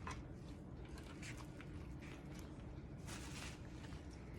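Faint handling sounds of the snare wire and wolf foot being worked by hand: a few small clicks and a brief scrape about three seconds in, over a low steady hum.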